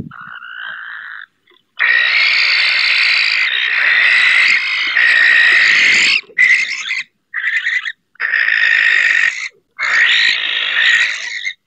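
Barn owls screeching: a series of long, harsh, rasping screams with short gaps between them, after a quieter call at the start. It is typical of a territorial clash between rival barn owls.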